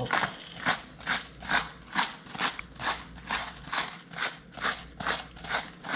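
Hand-twisted salt grinder crushing salt crystals over fish fillets, a steady run of gritty crunching strokes about three a second.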